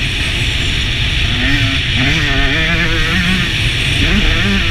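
Motocross dirt bike engine revving as it is ridden round the track, its pitch rising and falling with the throttle, under heavy wind rumble on the action-camera microphone.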